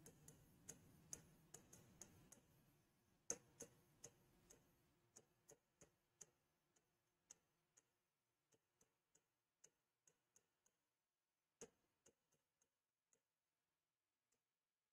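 Faint, irregular ticks of a stylus tapping the glass of a touch-screen whiteboard while writing, with a slightly louder tap about three seconds in and another near twelve seconds.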